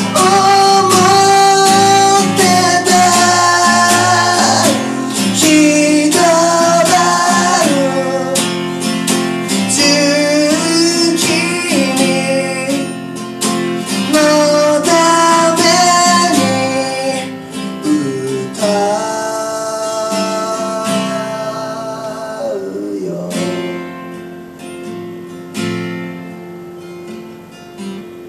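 A man singing while strumming an acoustic guitar in a live acoustic performance. The singing ends a few seconds before the close, and the guitar carries on more quietly on its own.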